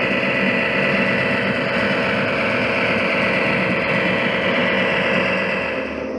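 Diesel locomotive engine sound of an EMD E8 passenger unit running steadily with a constant hum and hiss. Near the end the hiss fades and the sound gets a little quieter.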